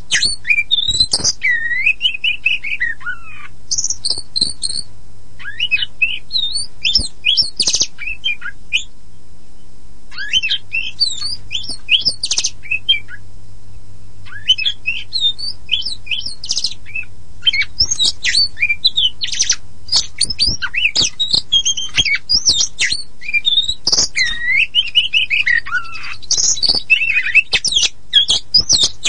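Oriental magpie-robin (kacer poci) singing a fast, varied song of whistles, trills and harsh chattering notes in bursts of phrases, with brief pauses about a third of the way in and near the middle. A low steady hum runs underneath.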